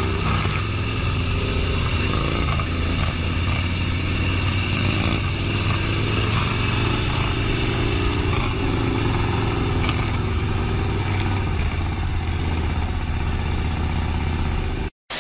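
Motorcycle engine running at a steady throttle with a low, even drone, as a bagger-style touring motorcycle is held up in a long wheelie. The sound breaks off for a moment just before the end.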